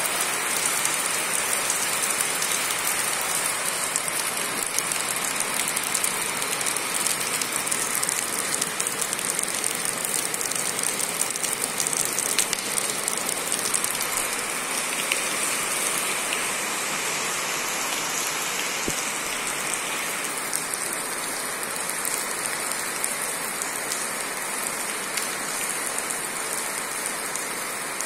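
Heavy rain pouring onto wet concrete paving and puddles: a steady, dense patter and hiss of splashing drops, a little softer in the last third as water spills off a roof edge.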